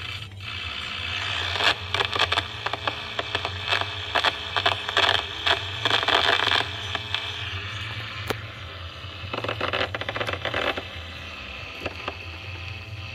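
Tube radio's loudspeaker putting out a steady mains hum with bursts of scratchy crackling static and no station coming through: the audio stages work but the set is not receiving.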